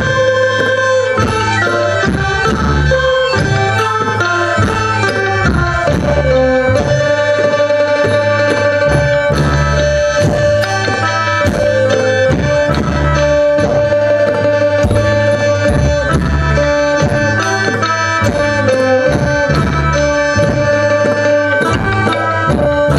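Live Thai traditional ensemble music: a held, reedy melody line over steady drumming.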